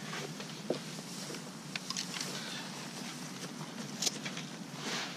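Footsteps and rustling through dry bank grass, with a few light clicks and knocks of fishing gear being carried and handled.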